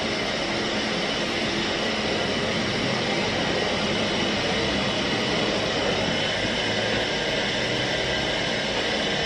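Single gas burner fitted directly on top of a small LPG cylinder, its flame burning with a steady, loud rushing hiss; it is the kind of burner that makes a lot of noise.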